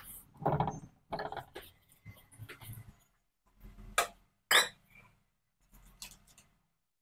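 Hot oil sizzling and crackling around a bottle gourd appam deep-frying in an aluminium kadai, coming in uneven spurts, with two sharp pops about four seconds in and half a second later.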